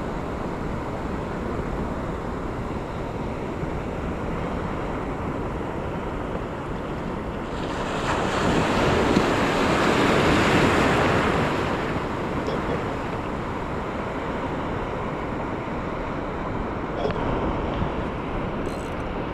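Sea surf washing steadily, with one wave surging louder about eight seconds in and dying away a few seconds later. Wind buffets the microphone throughout.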